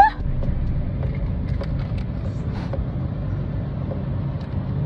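Car running with a steady low rumble.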